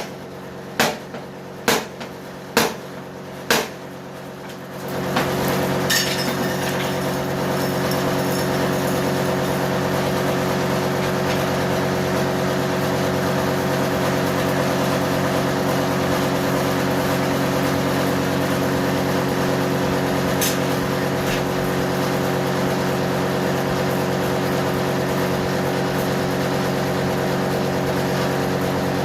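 Four hammer blows about a second apart, then a steady mechanical hum with several held tones starts about five seconds in.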